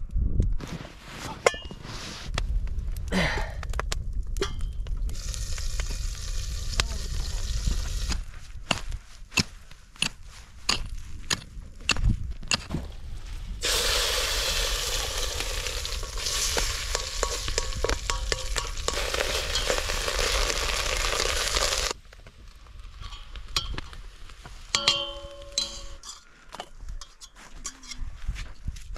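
Eggs sizzling loudly as they fry in a small steel pan over an open wood fire, with metal stirring and scraping in the pan. The sizzle stops suddenly two-thirds of the way through, leaving scattered clinks and scrapes of metal cookware.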